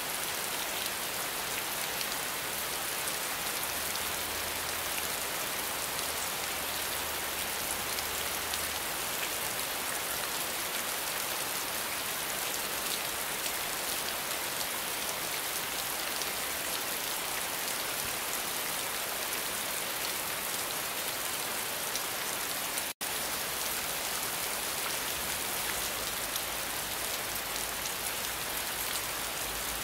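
Steady rainfall: a dense, even hiss of many drops, with a split-second gap about two-thirds of the way through.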